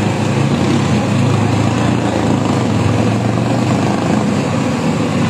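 A motor vehicle engine running steadily close by, a continuous low hum with general street noise over it.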